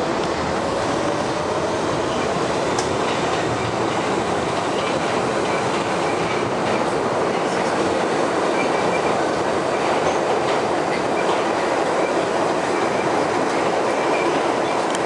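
R62A New York City subway car running at speed through a tunnel, heard from inside the car: a steady, loud rumble of steel wheels on rail, with a few faint clicks from the track.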